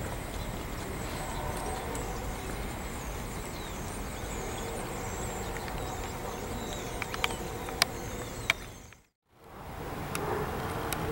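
Garbage freight train rolling past steadily, with a few sharp clicks near the end; the sound fades out briefly about nine seconds in and comes back.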